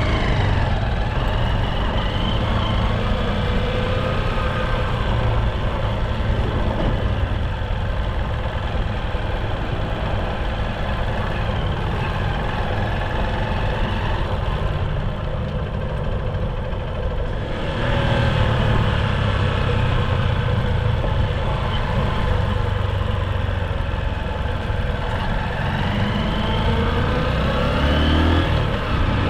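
Car engine and road noise while driving, steady with a few rises in engine pitch.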